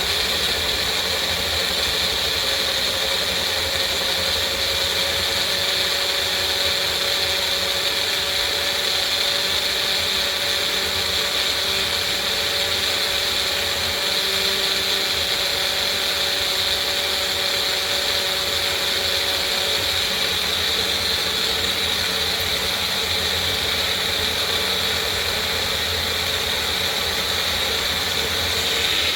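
Bullet-style personal blender motor running steadily, blending coconut pieces with water to make coconut milk.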